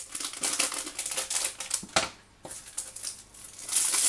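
Wrapper of chocolate bars crinkling as the bars are unwrapped by hand, in irregular crackling handfuls with a short pause about halfway.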